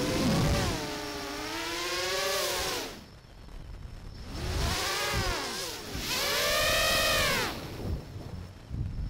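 X8 octocopter FPV cinelifter's Brotherhobby motors and Master Airscrew propellers whining, the pitch rising and falling with throttle. The throttle is chopped just before three seconds in and the sound nearly drops away. It is punched again at about four and a half seconds with a whine that rises then falls, and dips once more near the end.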